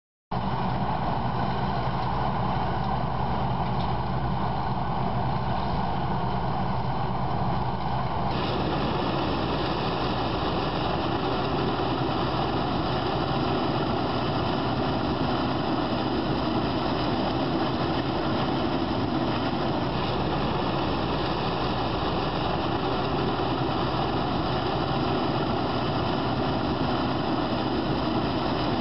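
Large farm tractor diesel engines running steadily under load while pulling field implements. The sound shifts abruptly about eight seconds in.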